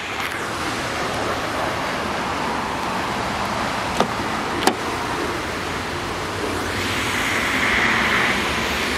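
Two sharp clicks about four and four and a half seconds in, as a 2013 Hyundai Veloster's driver-door handle is pulled and the latch releases, over steady outdoor background noise.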